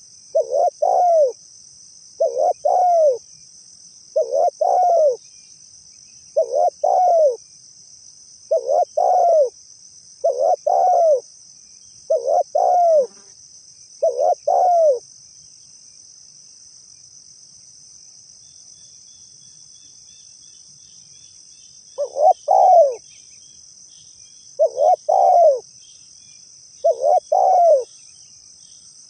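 Spotted dove (tekukur) cooing: a phrase of two or three soft coos about every two seconds, eight times, then a pause of about seven seconds before three more phrases. A steady high insect drone runs beneath, with faint chirps of small birds in the second half.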